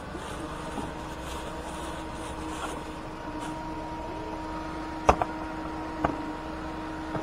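Plastic cooler box: hands rustle among its contents, then the lid is shut with a sharp clack about five seconds in and a second knock a second later. A steady mechanical hum runs underneath.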